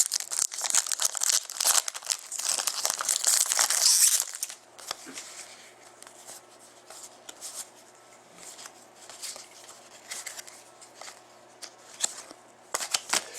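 A trading card pack wrapper being torn open and crinkled, loudest for the first four seconds. After that come quieter rustles and light clicks as the cards are handled.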